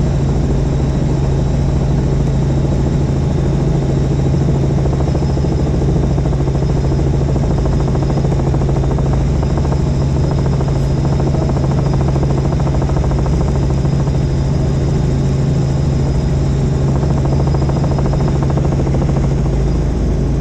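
Helicopter in flight: a loud, steady drone with a strong deep hum and a faint high whine above it.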